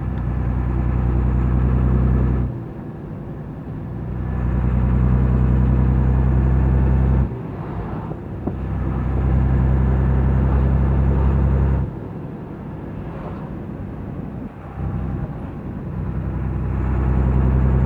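Turbocharged, intercooled diesel engine of a 1990 '1319' truck running loud under throttle with a deep steady drone. Three times it drops away for a second or several, as when the throttle is lifted or a gear changed, then swells back up.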